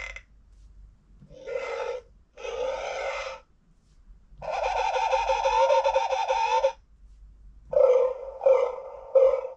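Recorded animal sound effects played through the small speaker of a LeapFrog 100 Animals electronic book in Fun Sounds mode: two short calls, a longer call of about two seconds in the middle, then three quick calls near the end.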